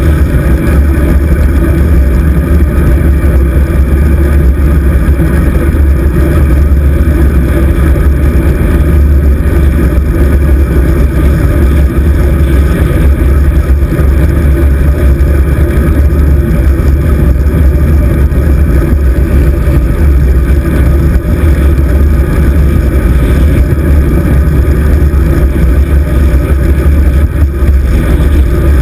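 Steady, loud wind rush buffeting the microphone of a handlebar-mounted GoPro Hero 2 on a moving bicycle, heaviest in the low rumble.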